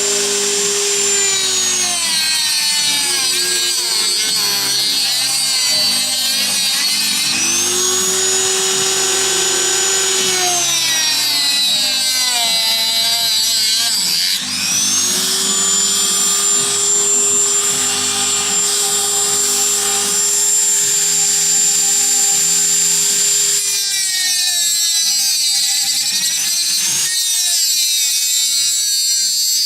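Small high-speed power cutting tool working wood: a steady high whine that sags in pitch each time the bit bites in under load and climbs back when it spins free, several times over. The whine weakens near the end.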